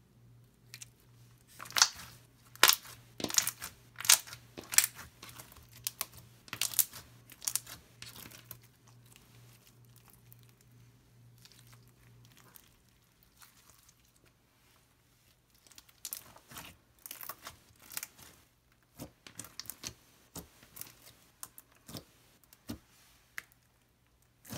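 Slime with fishbowl beads being squeezed and worked by hand, giving sharp crunchy crackles in two stretches, with a faint steady hum under the first half.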